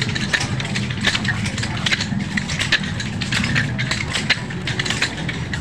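Repeated sharp slaps of stick-bundle scourges striking bare backs as several flagellants whip themselves, irregular strikes a few times a second, over a steady low hum.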